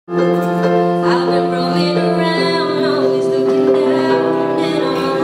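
A woman singing a slow song over held electronic keyboard chords. The chords come in suddenly at the start and the voice enters about a second later.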